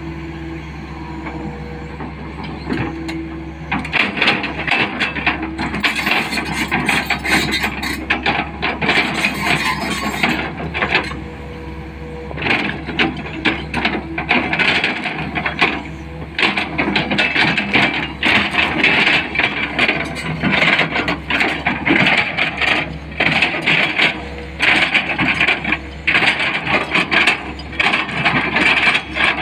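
Tata Hitachi 220 LC excavator's diesel engine running, with its bucket scraping and crunching through dry soil. The dense crackling starts about four seconds in and goes on with a couple of short lulls.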